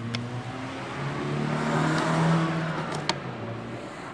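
A motor vehicle passing by: its engine hum and road noise swell to a peak a little past halfway and fade again. A sharp click about three seconds in.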